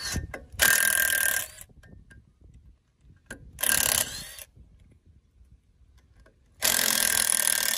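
Cordless impact wrench hammering in three bursts of about a second each, undoing the drive-flange bolts on a Land Rover Discovery 1 wheel hub.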